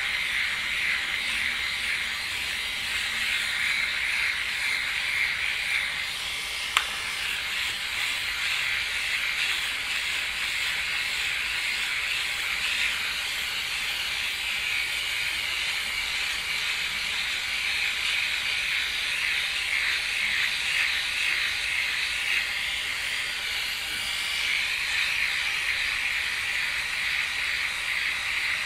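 Flawless Legs battery-powered hair remover running against the skin of a leg, a steady high whirring buzz. A single sharp click about seven seconds in.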